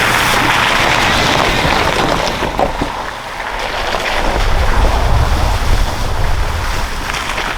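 Wind buffeting the microphone while a vehicle drives on a dirt road. A bright hiss fills the first couple of seconds, then a low rumble builds from about halfway.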